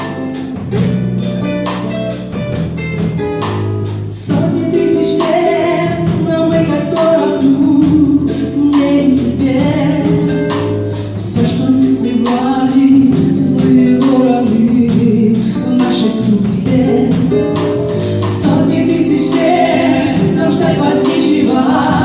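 Live pop song performance: female voices singing in harmony over a band of drums, bass guitar and guitars, the music growing louder and fuller about four seconds in.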